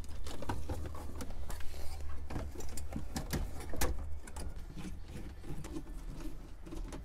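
Scattered plastic clicks, knocks and rustling as wiring harnesses and connectors are stuffed into a truck's dash cavity and a double-DIN head unit is pushed into its dash opening, over a steady low hum.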